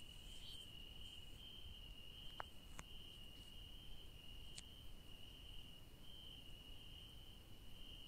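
Crickets chirping: a continuous high-pitched trill that swells and fades slightly, with a few faint clicks partway through.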